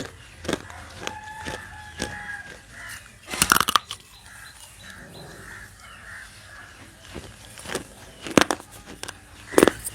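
Dry, unsoaked baked clay from a broken earthen diya being bitten and chewed: sharp crunches every second or so, loudest about three and a half seconds in and again near the end, with quieter chewing between.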